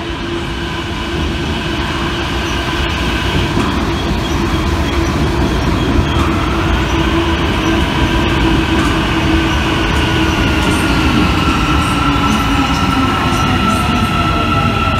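Istanbul Metro M2 train running into the platform and slowing, its rumble carrying a steady motor whine. The lower whine drifts down in pitch as the train slows in the second half.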